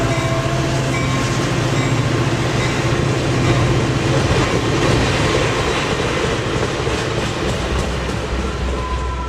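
A train running along the track: a steady, loud running noise of the wheels on the rails with a low hum under it, easing slightly near the end.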